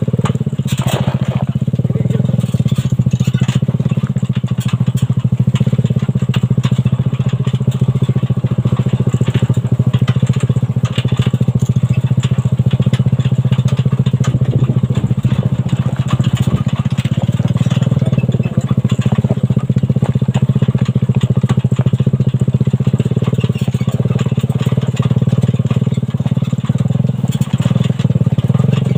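Suzuki Satria FU 150cc single-cylinder four-stroke engine of a homemade buggy running steadily while the buggy is driven.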